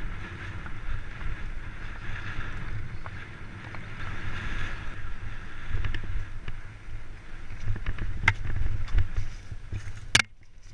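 Bicycle ridden along a bumpy dirt singletrack. Wind buffets the bike-mounted camera's microphone over an uneven rumble from the tyres and frame, with scattered sharp knocks and rattles over bumps; the loudest knock comes about ten seconds in.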